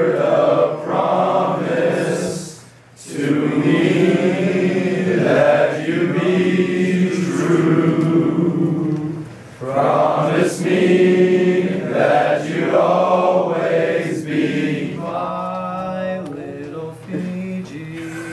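A male choir singing together from sheet music, long held notes, breaking briefly about three seconds in and again about ten seconds in. The singing grows quieter toward the end.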